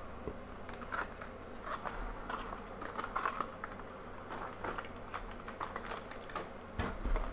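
Hands handling a plastic Heroclix miniature on its dial base and a foil booster pack: a scatter of light clicks and taps, with some crinkling of the pack.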